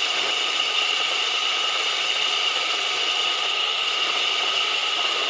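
Homemade mini metal lathe running steadily: a 24 V motor turns a 4-inch chuck mounted on the timing-belt pulley of a Suzuki three-cylinder cylinder head, holding aluminium stock, with a constant high whine over the mechanical noise.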